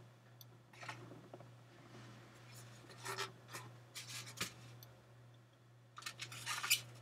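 Faint rustling and scraping of items being handled on a tabletop, in a few short spells, over a steady low hum.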